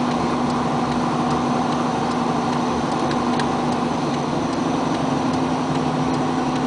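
Steady engine drone and road noise of a vehicle driving through a road tunnel, heard from inside the vehicle, with faint light ticks now and then.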